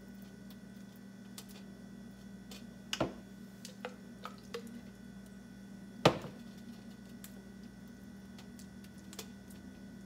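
Spoon scooping thick tomato sauce out of a plastic blender cup and spreading it on a pizza crust: soft wet handling with a few sharp knocks of spoon and cup, one about three seconds in and the loudest just after six seconds, over a steady low hum.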